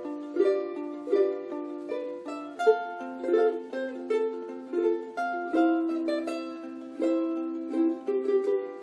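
Ukulele duet: one ukulele plays a Hawaiian melody in plucked notes while a second accompanies with chords.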